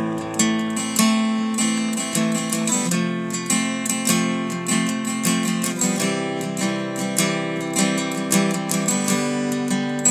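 Instrumental piece played on a Taylor W14 acoustic guitar: plucked notes in a steady rhythm over ringing chords.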